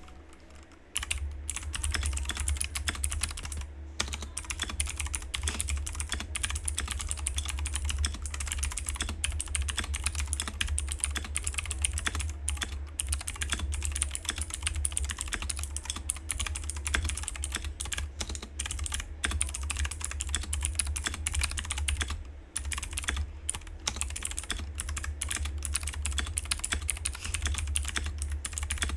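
Continuous typing on a mechanical keyboard with premium tactile switches: a dense, loud run of key clacks starting about a second in, with a couple of brief pauses.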